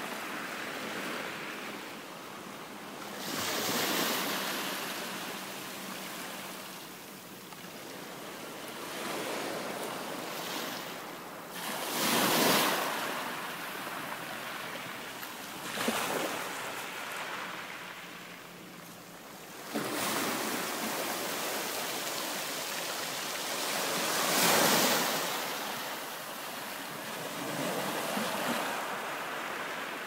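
Sea waves in shallow surf heard underwater through a hydrophone: a continuous rushing hiss that swells into a louder surge with each wave, about five times, a couple of the surges starting abruptly.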